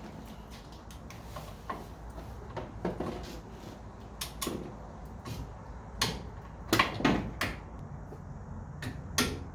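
Scattered sharp metallic clicks and clanks of a wrench and socket working the strut's top-cap nuts as they are tightened to torque. The strikes come irregularly, bunched in the middle and again near the end.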